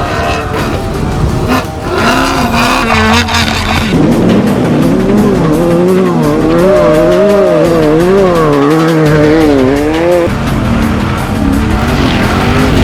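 Off-road race vehicle's engine running hard, its pitch swinging up and down quickly and repeatedly for several seconds in the middle, steadier before and after.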